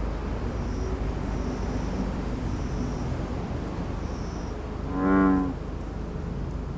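Steady low outdoor background rumble with a few faint high chirps. About five seconds in, a single loud pitched tone lasts about half a second.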